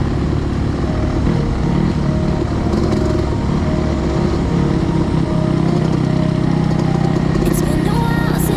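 Yamaha YZ250X two-stroke dirt bike engine running at fairly steady revs. Short clattering clicks come near the end.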